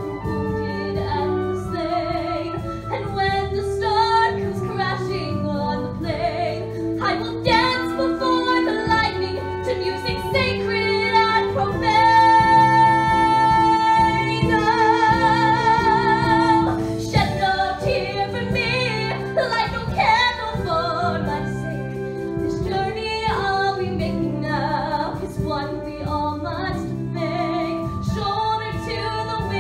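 A woman singing a musical-theatre solo over instrumental accompaniment. About twelve seconds in she holds a long high note that turns into vibrato partway through.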